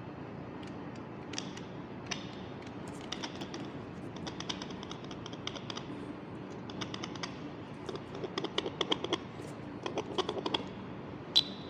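Plastic casing of a handheld fetal doppler being handled and fitted back together: small clicks and quick rattling runs of clicks, busier in the second half.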